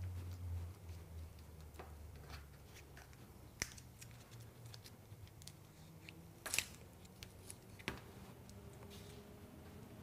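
Faint handling sounds of mastic tape being unrolled and pressed by hand onto a metal roofing panel: soft rustles with a few scattered light clicks and taps, the sharpest about six and a half seconds in.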